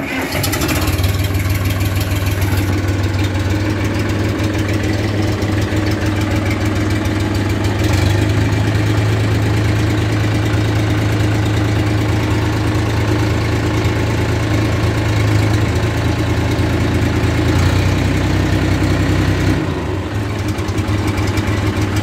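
John Deere 1520 tractor's three-cylinder engine just started and running steadily at idle, with a brief change in its note near the end.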